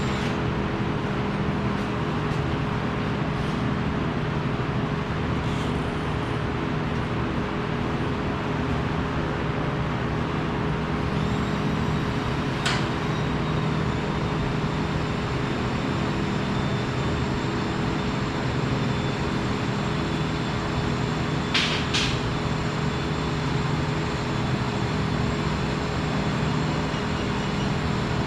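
Steady machinery hum, with three sharp clicks: one about halfway through and a quick pair later on.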